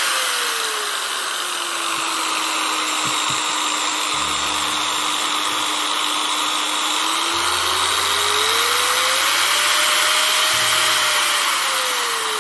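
Angle grinder running free while its speed is turned down and up on a variable speed controller: the motor's whine falls in pitch in the first two seconds and holds low, rises between about eight and ten seconds in, then falls again near the end.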